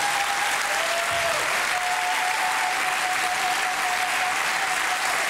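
Studio audience applauding, a steady even clapping, with a thin held tone over it that shifts in pitch about a second in.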